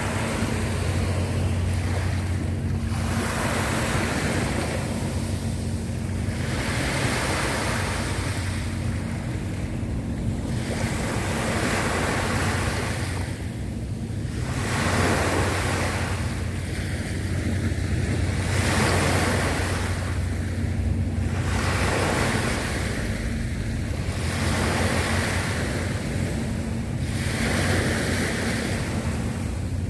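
Sea waves washing onto the shore, surging and ebbing every few seconds, with wind buffeting the microphone and a steady low hum underneath.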